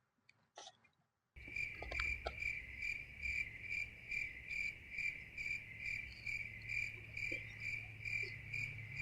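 Cricket-chirping sound effect cutting in abruptly about a second and a half in: a steady chirp pulsing about twice a second over a low hum. Before it there are only a few faint clicks.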